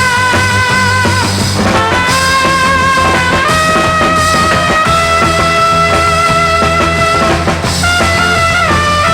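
Upbeat rock instrumental with horns, electric guitar, bass and drums; long held lead notes over a steady beat.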